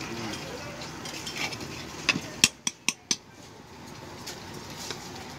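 Long-handled metal spoon stirring noodles and clanking against a steel pan, with a quick run of five or six sharp knocks about two to three seconds in.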